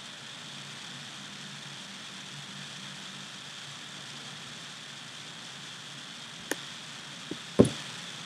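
Steady background hiss of an open microphone with a faint low hum, broken near the end by a few short clicks and one louder thump.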